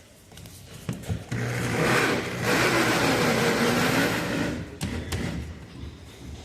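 Electric drill running for about three and a half seconds and boring a hole through a furniture panel; its motor pitch sags under load in the middle and then recovers.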